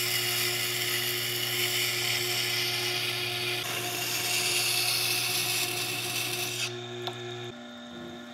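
Tormek T8 wet grinder running while a dull Mora knife is ground in a jig on its grindstone: a steady motor hum under a hissing scrape of steel on the wet stone. The scrape stops near the end, a click follows, and a quieter, different-pitched hum is left.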